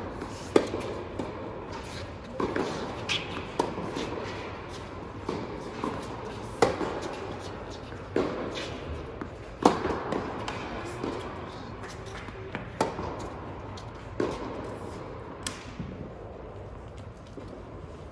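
Tennis rally on an indoor hard court: the ball is struck back and forth by racquets, a sharp pop with a bounce between, about every one and a half seconds, echoing in the hall. The hitting stops a few seconds before the end.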